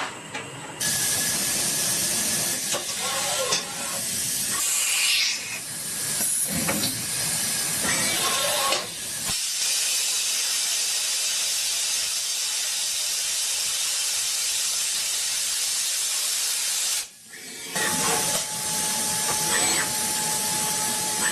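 A steady loud hiss, cutting out briefly about 17 seconds in, with faint voices in places.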